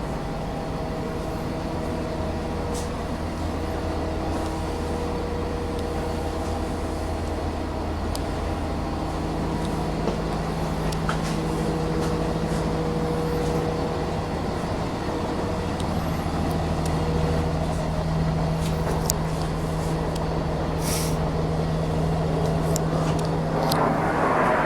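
5.9-litre Cummins ISB turbo diesel of a Blue Bird low-floor transit bus running steadily, its note shifting about nine seconds in. A rushing hiss builds near the end.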